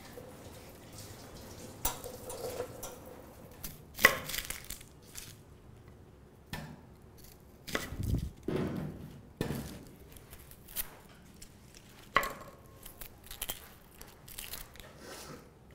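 Kitchen knife cutting small red onions on a wooden chopping board: irregular sharp knocks of the blade striking the wood, with softer rustle and scraping as the papery skins are trimmed and peeled.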